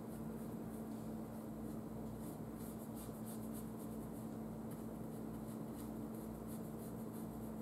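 Paintbrush stroking paint onto a canvas board: soft, irregular scratchy brushing, over a steady low hum.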